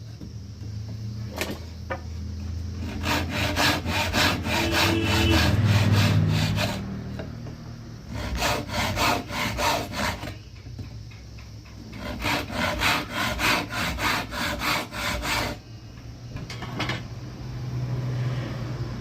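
A hand tool stroked rapidly back and forth on wood, sawing or rubbing, in three runs of a few seconds each with short pauses between.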